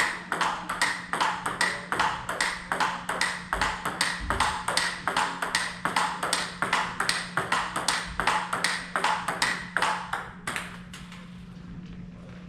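Table tennis rally: the celluloid-type ball clicking off rubber-faced paddles and the table in an even rhythm of about four hits a second, stopping about ten and a half seconds in.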